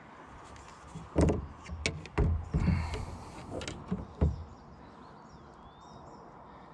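Several knocks and thumps of handling in a kayak while a smallmouth bass is unhooked from a crankbait, clustered between about one and four and a half seconds in, with a short rustle near three seconds.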